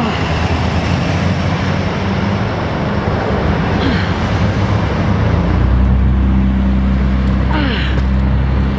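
Steady road and traffic noise heard from a moving bicycle, cars passing close by, with a heavier low rumble from about five and a half seconds in.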